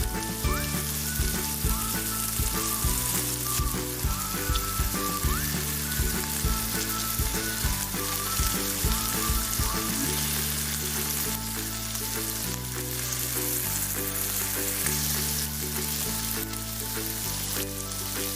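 Food sizzling as it fries in a pan, a steady crackling hiss, with instrumental background music underneath.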